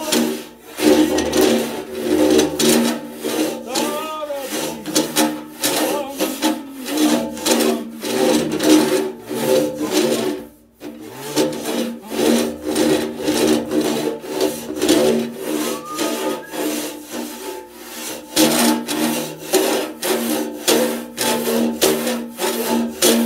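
Long-handled rasp, made from a rasp welded onto a length of angle iron, scraping back and forth inside a large metal organ pipe to file off solder drips: quick rasping strokes, about two to three a second, with steady tones held underneath. The strokes stop briefly about ten seconds in, then carry on.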